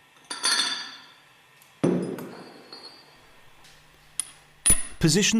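Steel separator bowl parts being handled and set down: a ringing metallic clink, then a duller knock, then a few light clicks.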